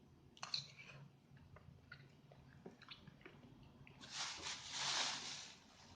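Close-up mouth sounds of eating soft-boiled egg with rawon: quiet chewing with small wet clicks, then about four seconds in a louder breathy hiss lasting over a second.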